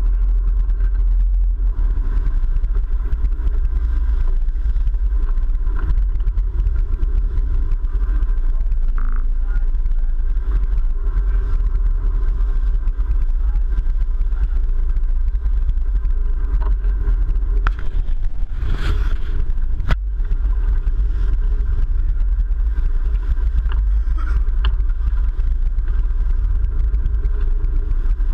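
Sportfishing boat's engines running with a steady, heavy low rumble, mixed with wind and water noise. A short burst of noise cuts in about two-thirds of the way through.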